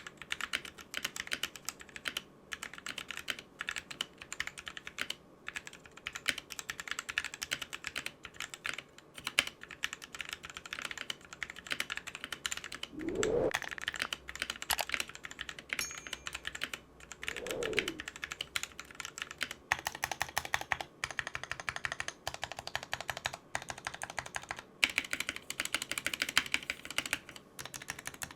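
Mechanical keyboard typing on pre-lubed Gateron Cap Yellow linear switches under pudding keycaps: a steady, fast stream of keystroke clacks, with quicker runs of typing in the second half.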